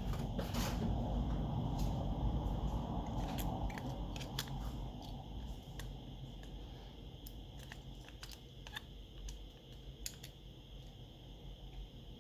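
Scattered small clicks and taps of phone parts and small repair tools being handled, over a low rumble that fades after the first few seconds.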